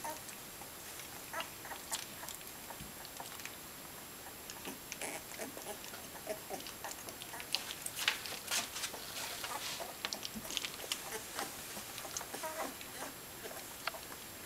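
Welsh Springer Spaniel puppies play-fighting: scattered scuffling and scratching of paws on a fleece blanket, with a few brief squeaks. The scuffling is busiest a little past the middle.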